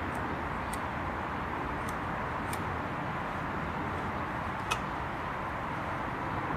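A few light metallic clicks from sewing machine parts being handled, over a steady background noise; the loudest is a sharp click with a short ring about four and a half seconds in.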